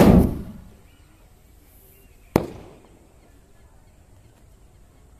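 Homemade sky shot firework shell firing: a loud bang that dies away over about a second, then a sharper, shorter crack about two and a half seconds later, typical of the lift charge launching the shell and the shell bursting in the air.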